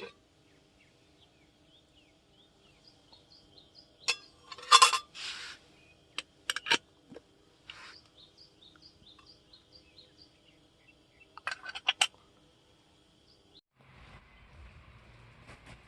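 Small birds chirping over and over, with a few sharp clinks and knocks about four to seven seconds in and again about twelve seconds in. Near the end the background changes to a steady hiss.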